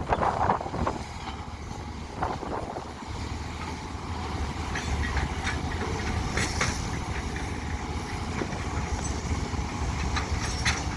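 Excavator's diesel engine running steadily, with scattered metallic clanks and clicks from the machine working.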